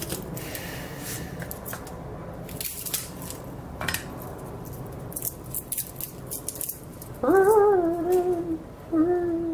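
Light taps and crinkles of garlic cloves being peeled and handled on a plastic cutting board. About seven seconds in, a woman hums a short tune in two phrases.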